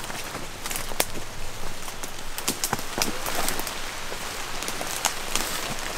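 Footsteps and rustling of leaves and brush as people in rubber boots walk through wet undergrowth, with many short sharp ticks and snaps scattered throughout.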